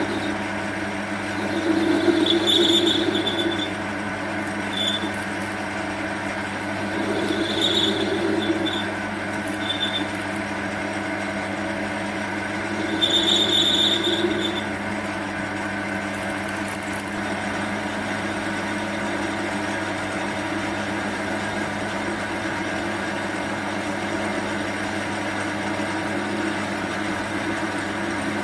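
Small lathe running steadily, with a high-pitched squeal rising over it three times, each lasting a second or two, plus a couple of short chirps: the cutting tool squealing as it turns the bronze.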